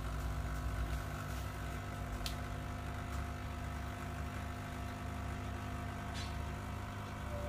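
Quick Mill Rubino espresso machine's vibratory pump humming steadily while pulling a shot through the E61 group with the flow control valve partly open, with two faint clicks.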